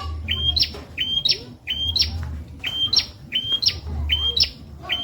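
A prenjak calling over and over in sharp, high chirps. Each chirp is a quick downward slide followed by a short flat note. They come in quick pairs about once a second.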